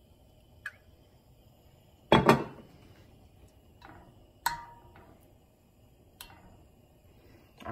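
Scattered knocks and clinks of a stainless steel frying pan being handled on a gas stove. The loudest is a double knock about two seconds in; another, about four and a half seconds in, rings briefly like struck metal.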